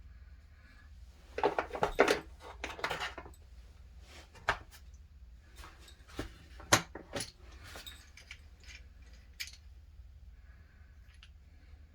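Hard metal and plastic tool parts being handled: a burst of clattering and clinking about a second and a half in, then scattered single clicks and knocks, the sharpest about seven seconds in.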